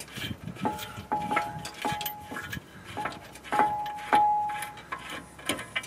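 Light metal clinks, several at uneven intervals, most with a short clear ring, as the front brake caliper carrier bolts are turned out by hand after being broken loose.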